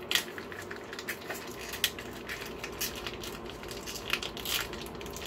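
Plastic packaging of a sous-vide-cooked pack of ground beef being peeled off and handled, giving irregular crackles and rustles.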